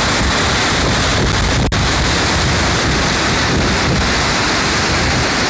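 A mountain burn in spate, swollen with snowmelt, rushing loudly and steadily over rocks as whitewater.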